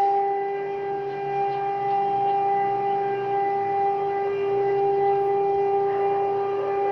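Emergency alert alarm tone presented as Kosovo's: one loud, steady tone with overtones, held without any change in pitch or rhythm.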